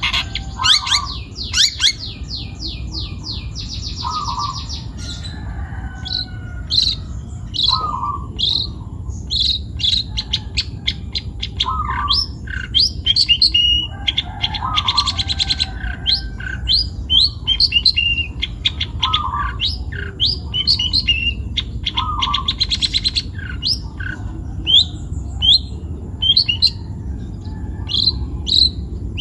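Long-tailed shrike in full song: a busy, varied run of short sharp chirps and fast trills, with a lower note coming back about every two seconds.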